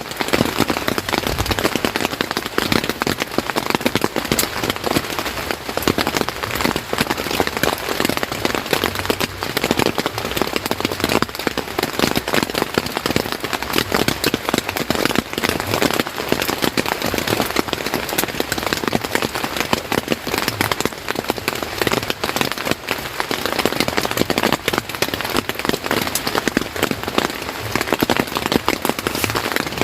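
Steady rain falling on a surface: a dense, even mass of drop impacts.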